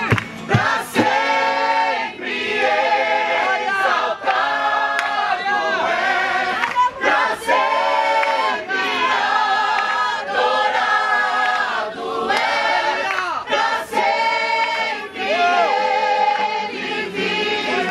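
A group of voices singing a worship song together, with little or no instrumental backing.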